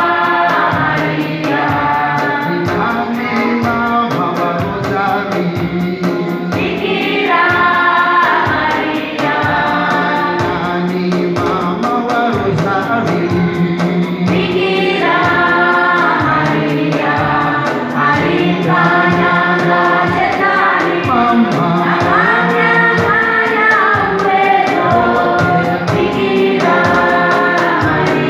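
Congregation singing a Swahili chorus to the Virgin Mary together, with a steady beat of about two strokes a second underneath.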